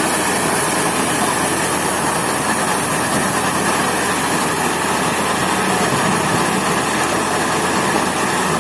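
Kubota DC-70G rice combine harvester running steadily close by: a loud, even wash of engine and machinery noise.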